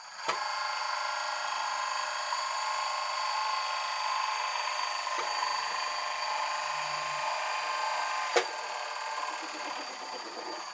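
Small electric motor in a 1:14 RC tipper truck model running steadily with a whine, switching on with a click just after the start and off with a click about eight seconds in.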